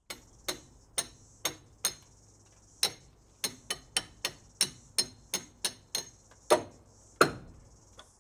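A hammer driving a metal bolt through a drilled hole in a timber beam: about seventeen sharp blows, mostly two or three a second, with the two loudest near the end.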